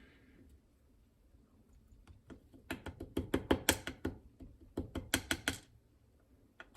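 Small metal lock pins clicking and rattling as the key pins are shaken out of a dimple lock's core, in two quick bursts of sharp clicks starting about two seconds in, with one more click near the end.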